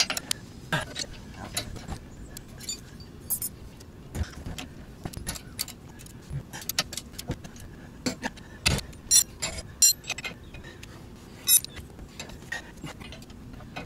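Irregular metallic clicks and clinks of a ratchet and wrench working the bolts on a steel weight-distribution hitch head, with loose tools clinking, several of the clinks ringing sharply.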